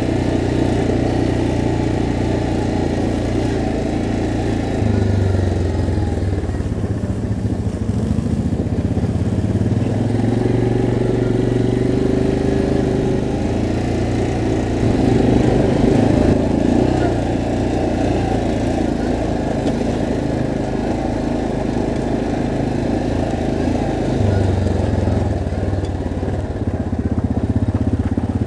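ATV engine running while riding down a gravel dirt road, heard close from the machine the camera rides on, its engine note shifting up and down several times with the throttle.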